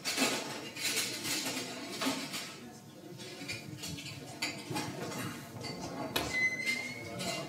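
Dishes, pots and utensils clattering and knocking on a kitchen counter as things are moved and cleared, with a brief high squeak about six seconds in.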